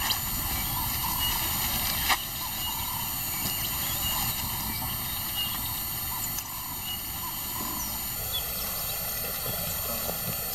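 Steady outdoor bush ambience with faint short chirps, and one sharp click about two seconds in.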